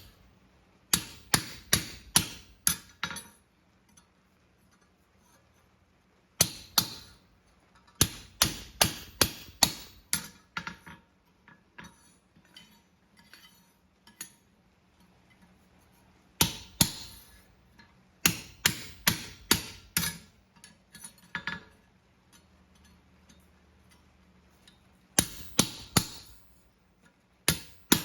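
Farrier's hammer striking a pritchel to open the nail holes in a handmade steel horseshoe on the anvil: quick runs of ringing metal-on-metal blows, a few strikes at a time, with short pauses between runs.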